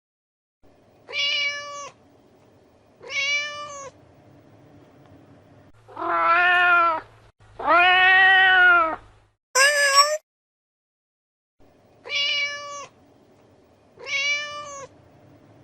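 A cat meowing repeatedly. Two short, higher meows are followed by two longer, lower and louder meows, then one more short meow. After a pause of about a second and a half come two more short meows.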